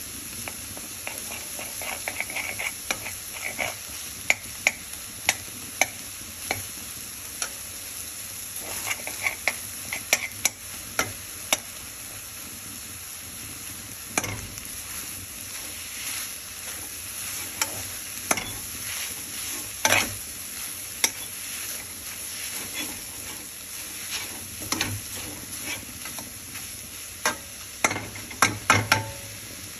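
Shredded beef sizzling steadily in a frying pan as a slotted metal spoon stirs it, with frequent sharp clicks of the spoon against the pan. The loudest knock comes about twenty seconds in, and a quick run of knocks comes near the end.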